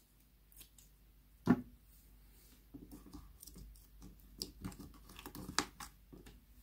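Glittery slime dropped into a glass goblet with one sharp thud about a second and a half in, the loudest sound. After that, a finger presses and pries green slime out of a plastic palette tray with soft sticky squishes and small clicks.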